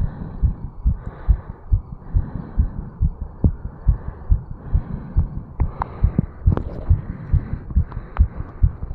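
A man's heartbeat recorded over the mitral valve area, fast and regular after jogging up stairs: deep thumps a little over twice a second under a steady hiss. A few sharp clicks from rubbing against the recorder come in the second half.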